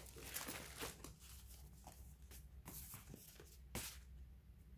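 Faint rustling and crinkling of a cotton dust bag and paper packaging being handled, a string of short scrapes and crinkles.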